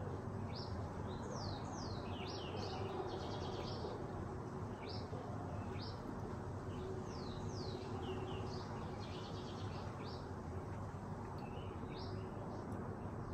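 Small birds chirping over and over, quick high calls, several sliding downward in pitch, over a steady low background noise.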